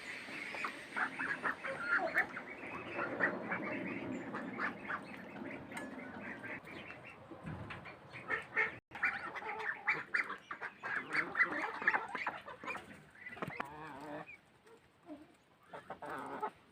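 A flock of domestic poultry calling while being fed, many short overlapping calls, growing sparser and quieter in the last couple of seconds.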